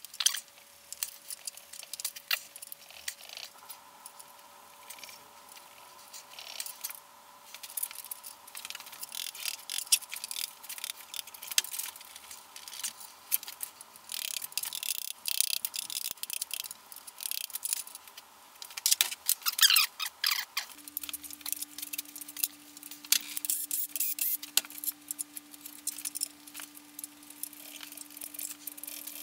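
Light metallic clinks, taps and rattles of a mallet and hand tools on the aluminium block and main bearing caps of a BMW M54B30 inline-six as the caps are knocked loose and lifted out. The clatter is busiest in the middle, with the loudest knocks about two thirds through.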